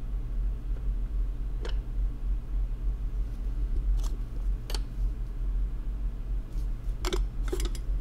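Steady low hum of bench equipment with a handful of short, light clicks and taps as hand tools are picked up and set down while soldering a connector's pads by hand.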